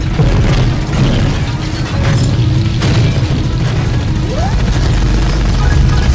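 Action-film battle soundtrack: rapid machine-gun fire and booming explosions layered over loud background music.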